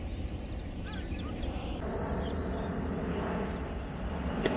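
Outdoor ambience of a steady low rumble with faint bird chirps about a second in, and one sharp knock just before the end.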